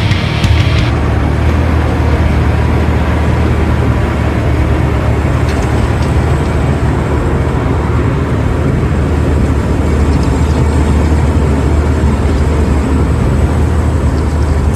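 Engine of a Bobcat compact track loader running steadily with a deep, even hum.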